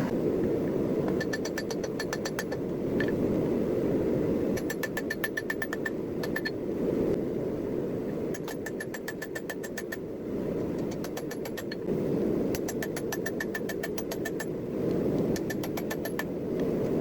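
Runs of rapid hammer blows on hot railroad-spike steel against an anvil, each with a bright metallic ring, coming in bursts of a second or two. A steady low roar sounds underneath throughout.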